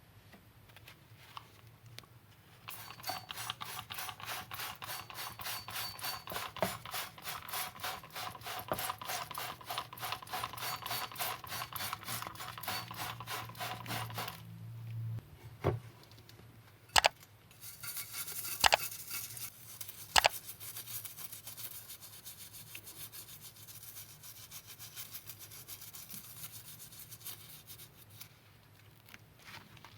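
Rapid back-and-forth rubbing strokes on a hard surface, several a second, lasting about twelve seconds. Then a few sharp clicks and a fainter steady rubbing.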